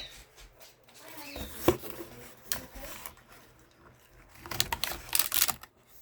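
Unpacking noises: rustling packaging and light knocks of handled parts, in irregular bursts, with a busier, louder stretch near the end.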